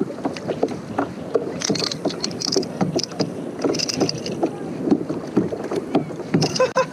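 Spinning reel being cranked to bring in a small hooked flounder, with irregular knocks and water lapping against a plastic fishing kayak's hull.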